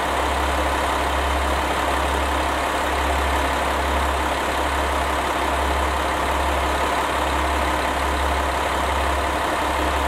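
A large engine idling steadily, a deep even hum with a constant rumble above it and no change in speed.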